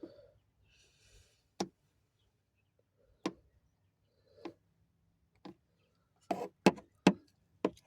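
A series of short, sharp clicks and taps, spaced out at first and then several in quick succession near the end, from plastic headlight parts being handled in a car's engine bay.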